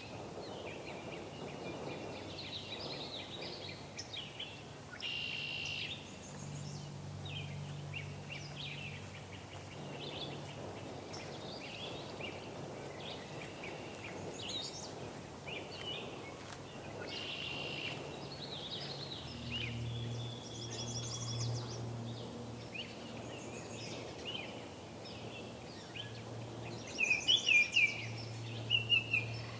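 Several songbirds calling and singing over one another in a spring wetland chorus, with a few louder, sharper calls near the end. A faint low steady hum runs underneath.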